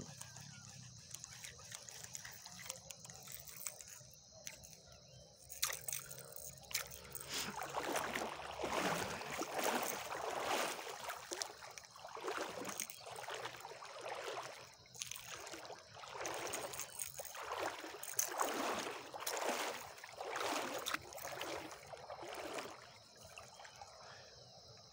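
Water sloshing and lapping at the shore in repeated surges, about one a second, over a faint steady high-pitched tone.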